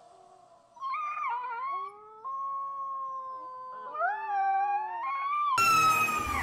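Husky puppy howling: a run of wavering, gliding howls, one of them held steady for about a second and a half. Near the end it cuts to a louder howl from an adult husky over a rushing noise.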